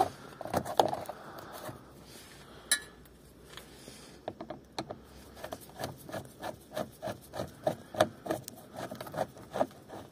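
Screwdriver turning a screw in the plastic brake cooling duct under a car's front wheel arch: scraping and rubbing, with one sharp click about a third of the way in, then a run of short scratchy clicks, one or two a second.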